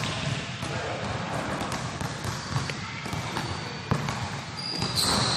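Indoor basketball game on a court: players' footsteps and a ball bouncing, with a sharp thud about four seconds in and a few short, high squeaks near the end.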